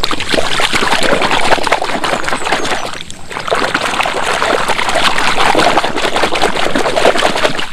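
Shallow muddy water splashing and sloshing as a hand scrubs a mud-caked plastic toy train back and forth in it, with a short pause about three seconds in.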